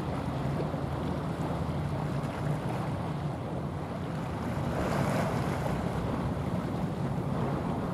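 Low steady drone from a passing container ship, with the rush of its bow wave and water and wind buffeting the microphone. A louder rush of noise swells about five seconds in.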